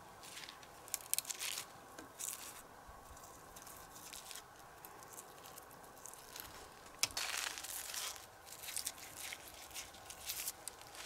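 Irregular rustling and crunching as something is handled, in short bursts, with the longest and loudest stretch about seven seconds in.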